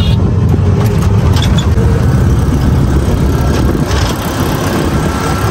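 Auto-rickshaw engine running steadily as it drives, heard from inside its open passenger cabin: a loud low rumble with road noise.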